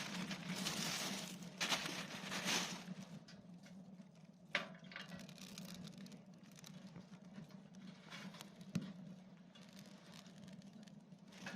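Wood fire in a pail-can rocket stove crackling: dense hissing crackle for the first couple of seconds, then quieter scattered crackling with a few sharp pops, over a steady low hum.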